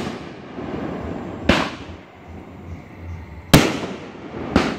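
Aerial firework shells bursting: three sharp bangs, about a second and a half in, about three and a half seconds in, and again a second later, each trailing off in a rolling echo.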